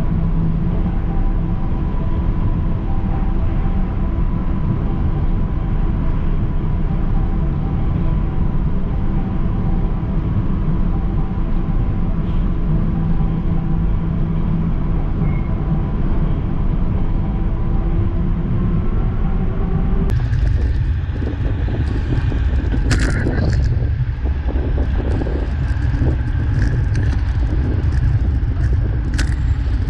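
Steady hum and whine of a Macau light-rail train heard from inside the car, with its whine beginning to rise just before a sudden change about two-thirds in. Then wind rushing over the microphone and road rumble from a bicycle riding on a city road, with a few sharp clicks.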